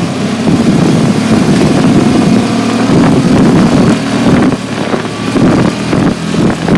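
ATV engine running steadily while riding, with wind buffeting the microphone.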